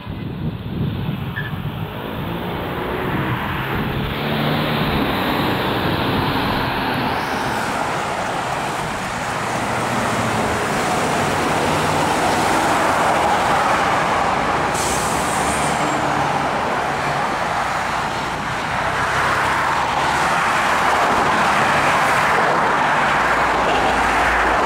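Road traffic pulling away on a green light and driving past: car engines and tyres building over the first few seconds to a steady rush of passing traffic, with a semi truck among the vehicles. A brief high hiss sounds about fifteen seconds in.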